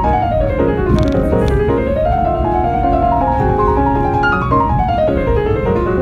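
Background piano music playing quick runs of notes that fall and rise in pitch.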